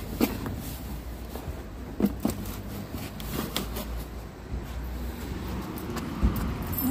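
Steady low hum with several sharp clicks and knocks as the air-pump hose and connector are worked at the tyre valve.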